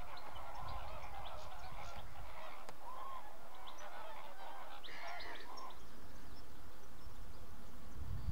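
A flock of greater flamingos calling with overlapping, goose-like honks. The calls are busiest over the first six seconds and then thin out.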